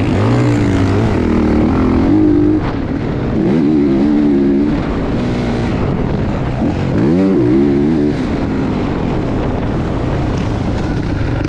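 Motocross dirt bike engine revving hard and backing off again and again, its pitch climbing and dropping several times.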